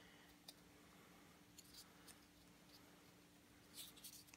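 Near silence: a faint steady hum with a few soft, scattered clicks and a short cluster of light handling noises near the end, as a cardboard character standee is worked into its plastic stand.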